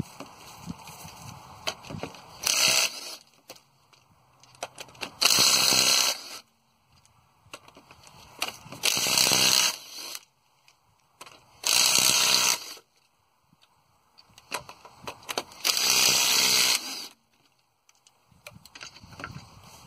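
Impact wrench running in five short bursts, each about a second long and a few seconds apart, with quieter clatter between them: lug nuts being run onto a wheel.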